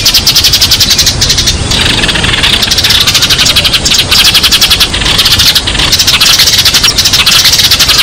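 A flock of sparrows chirping together in a dense, rapid, unbroken chatter of many overlapping chirps, the flock call that draws other sparrows in.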